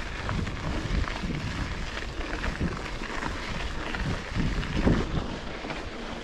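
Mountain bike rolling over rough trail: steady tyre noise on dirt and gravel, with frequent small knocks and rattles and a louder thump about five seconds in.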